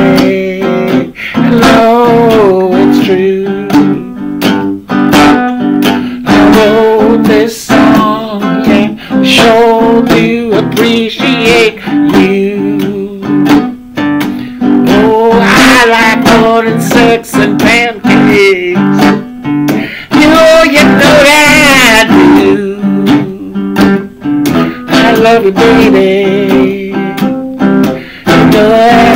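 Acoustic guitar strummed in a steady blues rhythm, with a man's voice singing over it at intervals.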